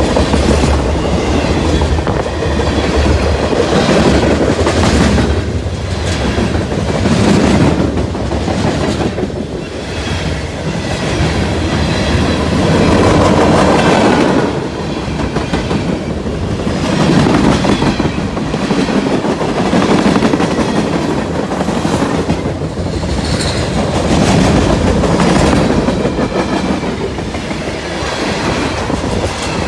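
Freight cars of a long CSX train rolling past close by: a steady rumble and clatter of steel wheels on the rails, with a rhythmic clickety-clack that swells and eases every couple of seconds as each car goes by.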